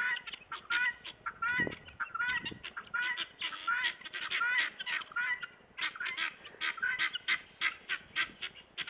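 A flock of birds calling loudly, with many short calls repeating several times a second and overlapping one another.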